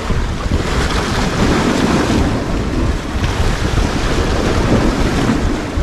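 Choppy sea waves breaking and washing against the rocks at the water's edge, with strong wind buffeting the microphone in a heavy low rumble.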